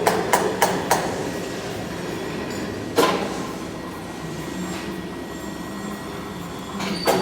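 Metal being hammered in a machine workshop: quick strikes at about three a second that stop about a second in, then two single loud knocks, one about three seconds in and one near the end, over a steady workshop hum.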